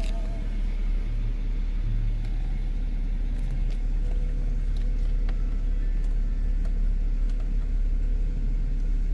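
A car running, with a steady low rumble.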